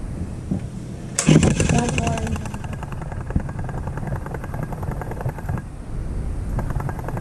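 Steady low rumble with a sudden louder clatter about a second in, then fast, even clicking: a toy train's motor and gears running while the train sits stalled on its track.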